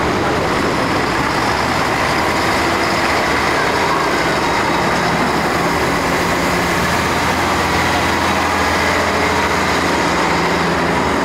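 Engines of heavy military vehicles running steadily as they drive past, with a low hum.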